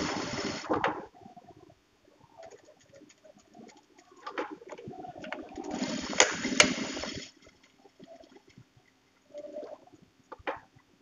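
Juki industrial lockstitch sewing machine stitching in two short runs: one stops about a second in, the other runs from about five to seven seconds in. Light clicks in between.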